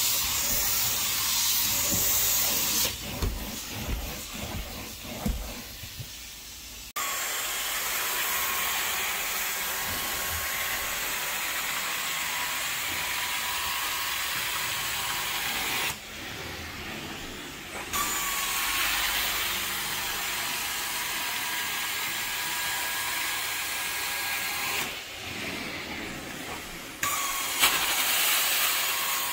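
Carpet extraction cleaner's wand sucking and spraying across carpet: a steady hiss with a faint motor whine, dropping away three times and coming back.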